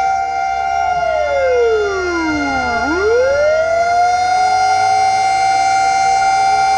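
Fire truck siren wailing: it holds a high pitch, slides down to a low growl over about two seconds, then climbs quickly back up and holds high again, starting another fall near the end.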